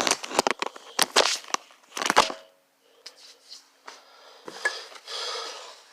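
Empty aluminium soda can being knocked and handled: several sharp clacks in the first two seconds or so, then quieter taps and rustling.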